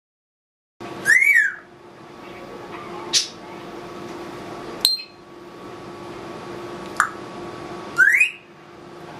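Congo African grey parrot whistling and clicking: a whistle that rises and falls about a second in, three short sharp clicks spread through the middle, and a quick rising whistle near the end, over a steady low hum.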